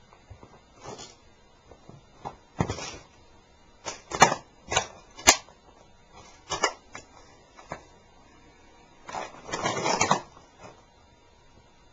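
Sneakers stomping on and crushing the wreck of a toy Leopard tank on a board: a run of separate crunching and cracking bursts. There are two sharp snaps about four and five seconds in, and a longer grinding crunch lasting about a second near the end.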